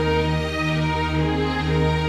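Slow orchestral film-score music with long held string chords.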